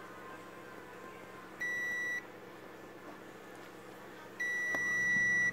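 Digital multimeter continuity buzzer beeping during a check for a short circuit on the TV board: one short beep, then a longer, steady beep near the end.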